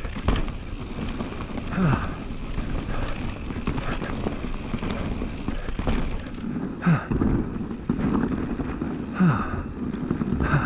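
Norco Range VLT e-mountain bike riding down a rough snowy trail: steady tyre and trail noise with frequent rattles and knocks from the bike. The rider gives short grunts about two, seven and nine seconds in.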